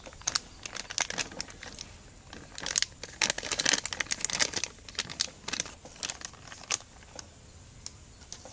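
Plastic paneer packet crinkling and crackling as it is handled and emptied, busiest in the middle and thinning out near the end.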